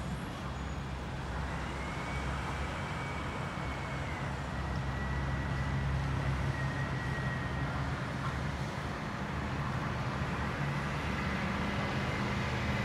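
Steady low outdoor rumble like distant road traffic, with a faint high whine held through much of it.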